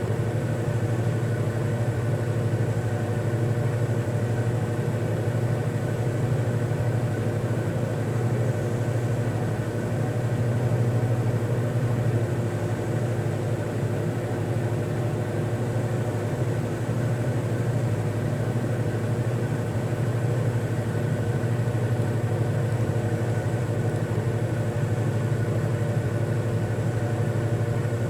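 A steady, low, machine-like drone at one constant pitch with overtones above it. It does not change and has no breathing rhythm.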